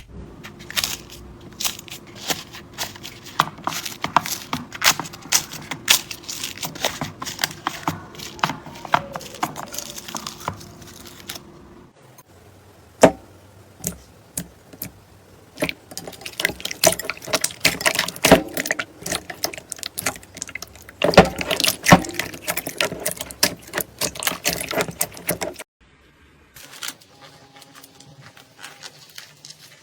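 Hands squeezing and poking slime, making dense crackling clicks and pops. It comes in several separate clips: the sound pauses about 12 s in and changes near 16 s, then turns faint and sparse for the last few seconds.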